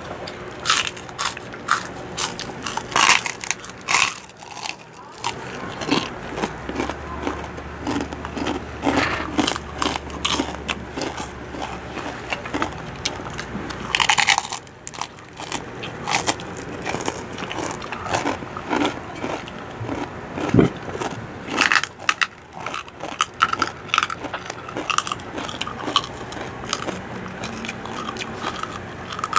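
Crunchy bites and chewing of crispy pork chicharon (deep-fried pork rinds), many sharp irregular cracks one after another.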